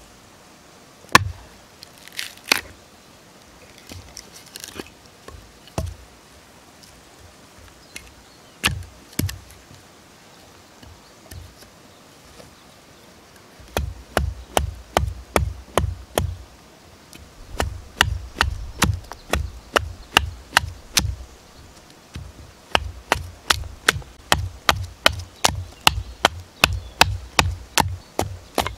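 Hatchet chopping into a branch stood on a log chopping block. A few separate strikes at first, then from about halfway a fast run of chops, roughly two or three a second, as the branch is split and hewn flat.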